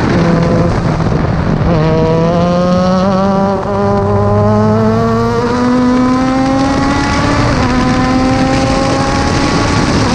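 F3 open-wheel race car engine accelerating hard, pitch climbing steadily, with a brief dip for an upshift about three and a half seconds in and another gear change near seven and a half seconds. Heavy wind rush on the onboard microphone.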